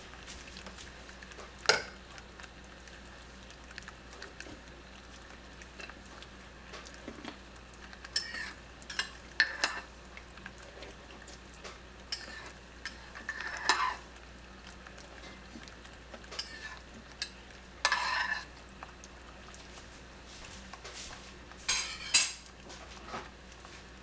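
Caramel boiling hard in a stainless steel saucepan on a gas burner: a faint steady hiss broken by scattered sharp pops and short sizzling spurts as large bubbles burst.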